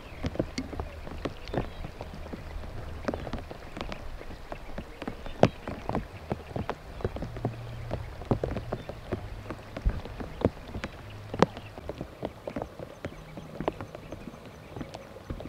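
Raindrops tapping and dripping onto a surface, a few sharp taps a second of uneven loudness, over a faint low hum.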